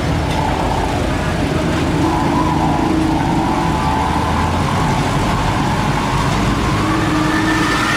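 Heavy diesel engines running steadily, with a whining tone that slowly rises and falls.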